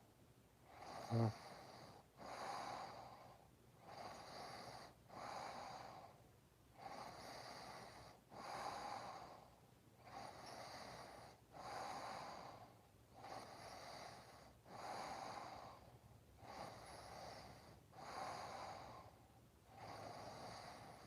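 A sleeper snoring faintly, with slow, even breaths in and out, each cycle lasting about two and a half seconds. About a second in there is one very short, loud pitched sound.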